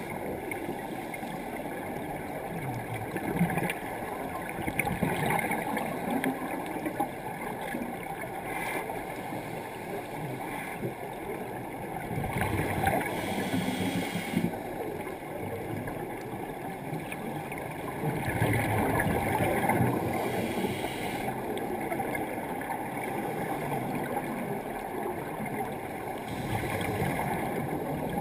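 Underwater sound of scuba diving, muffled by the camera housing: a steady low rumble of water with regulator breathing. Exhaled bubbles bubble and gurgle in louder swells every several seconds, with a brief hiss at times.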